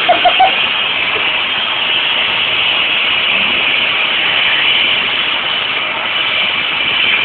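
Vacuum cleaner motor running steadily with a high, even rushing hiss.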